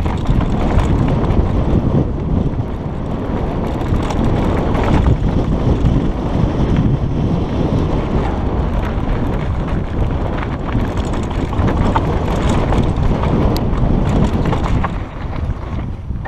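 Wind rushing over a helmet-mounted GoPro's microphone as a mountain bike speeds down a dry dirt trail, with tyres crunching over dirt and loose rocks and the bike rattling. It eases off near the end.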